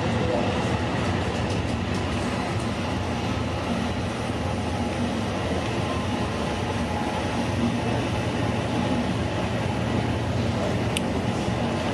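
Steady rumble of an Amtrak Superliner passenger car rolling along the track at speed, heard from inside the car, with one faint click near the end.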